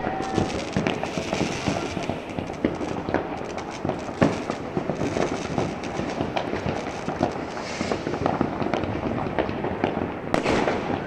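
New Year's Eve fireworks and firecrackers going off all around: a dense, continuous run of bangs and crackles, with one louder bang about four seconds in.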